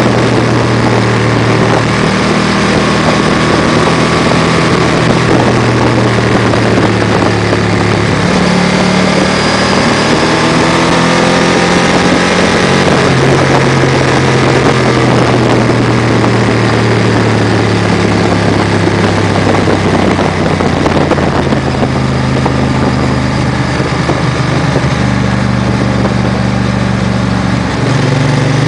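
Motorcycle engine running steadily under way, with wind rushing over the microphone. The engine pitch drops a little about eight seconds in, rises again near the halfway point, then slowly sinks.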